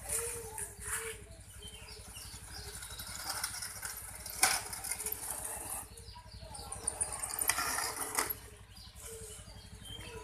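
Toy RC car's small electric motor and wheels whirring in two bursts, a longer one of about three seconds and a shorter one later, over a steady background hum.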